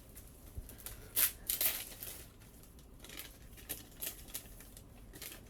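Paper crinkling and tearing in short rustles as a present is unwrapped, the loudest about a second and a half in.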